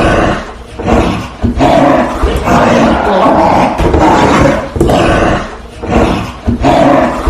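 Rottweiler growling furiously in loud, harsh bursts, one after another with short dips between them: a threat growl given before attacking.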